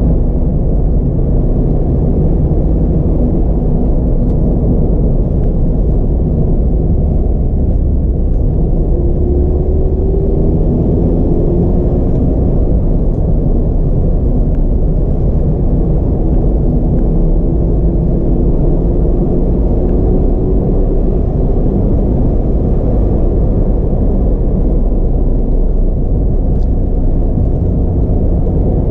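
Mazda MX-5 RF's four-cylinder petrol engine and tyre noise heard from inside the car while driving: a steady low rumble, with the engine note climbing slowly a couple of times in the middle.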